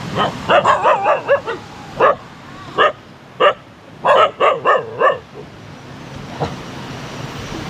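A dog barking repeatedly in short sharp barks, some in quick runs and some on their own, with a last single bark near the end.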